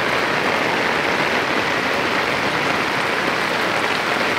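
Heavy rain falling steadily, a dense, even hiss with no let-up.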